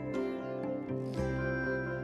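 Background music: a gentle plucked-string melody.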